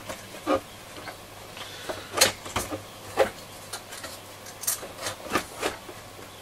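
Irregular clicks, knocks and scrapes of a transistor radio's front control panel being pressed and eased back into its case, the loudest knocks a little over two and three seconds in.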